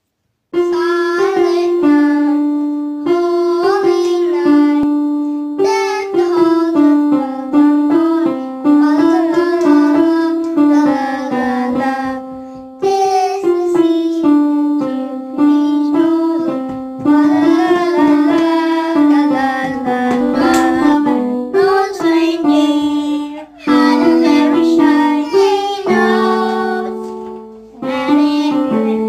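A child singing a Christmas carol along with a simple melody played note by note on an electronic keyboard's piano sound. The music starts about half a second in.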